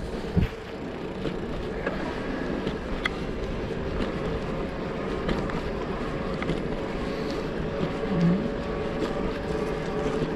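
Steady riding noise from a bike in motion, a continuous hum carrying a steady tone, with scattered small clicks and rattles and one sharp knock about half a second in.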